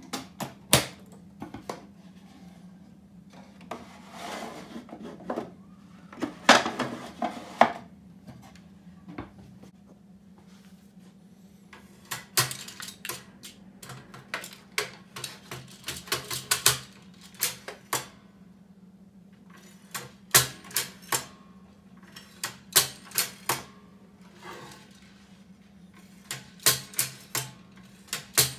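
Slide-changing mechanism of a Richard frères Taxiphote stereo viewer worked by hand: metal levers, ratchet wheel and slide magazine clicking and clacking in irregular clusters of sharp snaps, over a faint steady hum.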